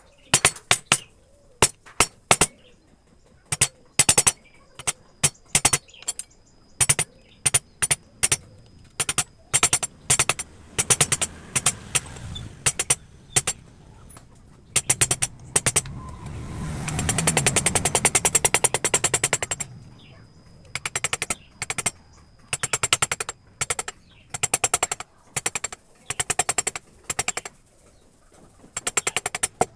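Wooden mallet striking a carving chisel into wood: sharp taps in irregular clusters, running together into a fast, continuous string of taps for a few seconds midway.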